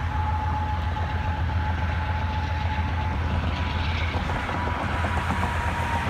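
Union Pacific coal train and its rear diesel pusher locomotive rumbling by in the distance, with a thin steady high tone over it, mixed with cars passing on the road.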